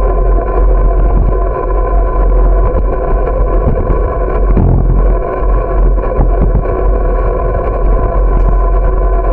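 Wind buffeting the microphone of a bicycle-mounted camera while riding, as a heavy low rumble with a steady multi-tone hum over it. A single bump is heard about four and a half seconds in.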